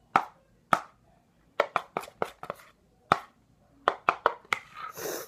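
Spoon knocking against a bowl while stirring a glue and shaving-cream slime mixture: about a dozen sharp taps at irregular spacing, then a short scraping smear near the end.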